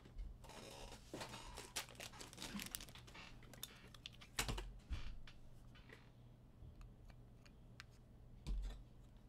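Quiet, irregular light clicks and taps, with a few louder knocks about four and a half seconds in and a soft thump near the end.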